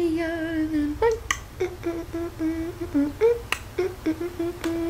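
A girl humming a tune with her mouth closed, the pitch stepping from note to note, with sharp clicks scattered through it, about one every half second.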